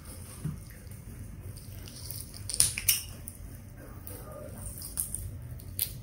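Fried chicken quarter leg being torn apart by hand: the crisp skin and meat crackle and tear, with a few sharp crackles about two and a half seconds in and again near the end, amid soft handling sounds.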